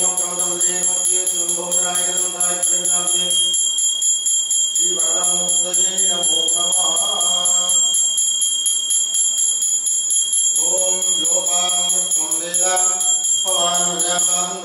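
A puja hand bell rung rapidly and without pause, a fast steady ringing, over a low voice holding long sung phrases that break off briefly between them.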